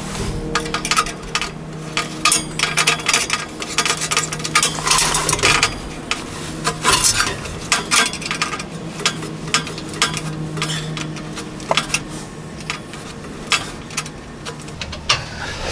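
Irregular metallic clinks and scrapes from hands and a level working against a stainless exhaust vent pipe and its termination cap. A steady low hum runs underneath and fades out about two-thirds of the way through.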